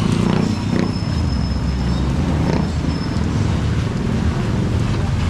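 Steady rain falling on a wet street, under a constant low rumble of wind on the microphone and traffic.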